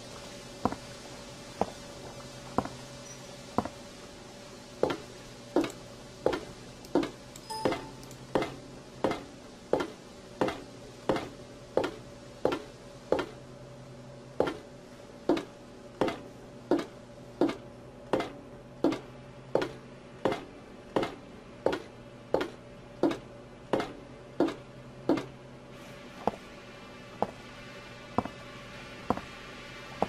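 Video game footsteps, slow and evenly paced at about three steps every two seconds, over a steady low ambient drone. The steps grow fainter near the end.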